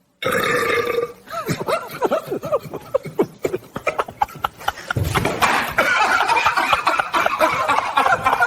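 A loud, long burp that starts suddenly about a quarter second in and goes on croaking and wavering in pitch for several seconds.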